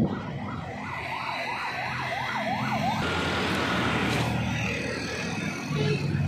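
Electronic siren wailing rapidly up and down, about three sweeps a second, which cuts off about three seconds in, leaving a steady rushing noise.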